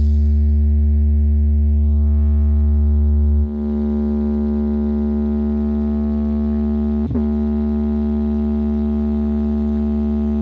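Stacked outdoor sound-system speakers giving out a loud, steady low hum with many overtones. The deepest bass drops away about three and a half seconds in, and a brief click comes near the seven-second mark.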